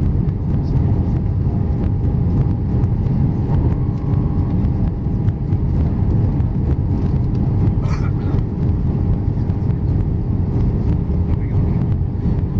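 Steady low cabin rumble of an Airbus A319 on approach with flaps extended: engine and airflow noise heard inside the cabin over the wing, with a faint steady hum on top.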